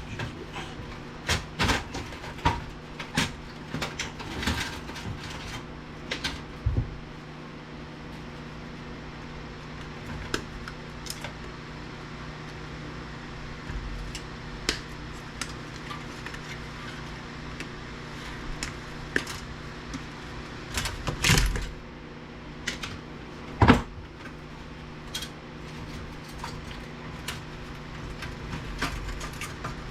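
Scattered clicks, taps and knocks of plastic and metal parts being handled and worked loose while a VCR/DVD combo unit is taken apart, with one louder knock about three quarters of the way through. A steady low hum runs underneath.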